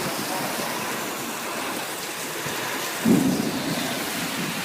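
Heavy thunderstorm rain hissing steadily, with one brief louder low burst about three seconds in.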